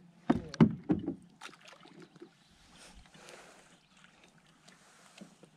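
Water sounds around a kayak: a few sharp splashes and knocks in the first second or so, then a soft, even hiss of water and wind.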